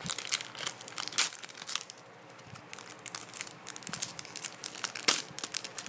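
Metallic foil Pokémon booster pack being torn open and crinkled: a quick run of sharp crackles that thins out about two seconds in, with one loud crinkle near the end as the cards are pulled out.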